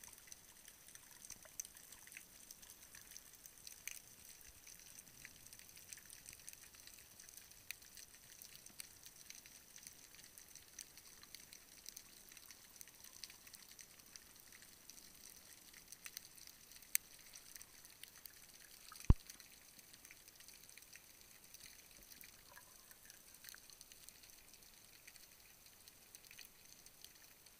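Faint underwater ambience picked up by a submerged camera: a steady fine crackle of tiny clicks, with two sharper clicks about two seconds apart past the middle.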